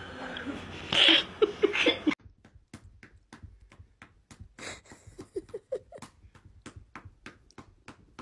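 A person laughing in short quiet giggles with quick, rhythmic breaths, about three or four a second, and a few brief squeaky notes about five seconds in. Before that, a louder stretch of noise cuts off abruptly about two seconds in.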